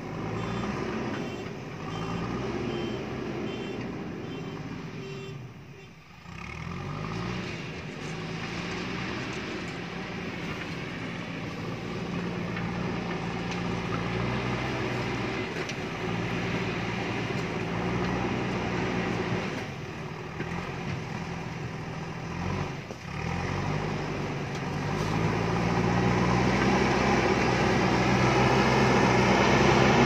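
JCB ecoXcellence backhoe loader's diesel engine working under load as it pushes rock and soil with its front bucket, the revs rising and falling. It grows louder near the end as the machine comes closer.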